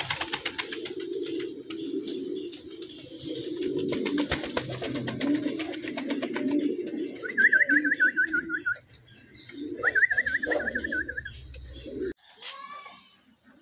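Domestic pigeons cooing, low rolling coos, with rapid pecking clicks in the first half as a pigeon eats grain from a plastic bowl. Twice, about seven and ten seconds in, another bird gives a high trill; the sound stops abruptly near the end.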